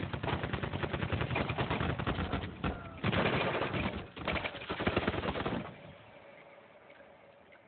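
Automatic rifle fire: a long volley of rapid shots with a brief break near the middle, stopping about five and a half seconds in.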